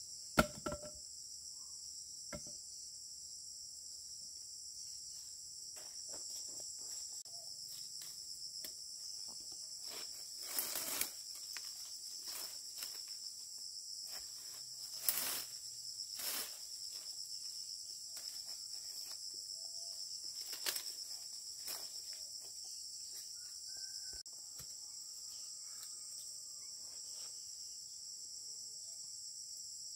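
Steady, high-pitched chorus of insects, with scattered short knocks and rustles, the sharpest about half a second in and a few more around the middle.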